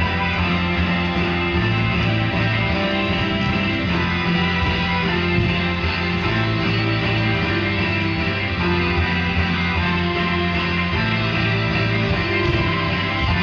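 Music with guitar playing steady, sustained notes, the backing track for the dance.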